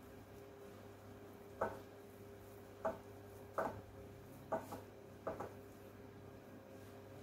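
A hand mixing a crumbly wheat-flour mixture in a glass bowl, with about six short knocks against the bowl, irregularly spaced, starting about one and a half seconds in. A faint steady low hum lies underneath.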